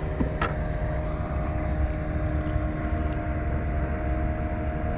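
Wind rumbling on the microphone over a steady low drone, with a single sharp click about half a second in.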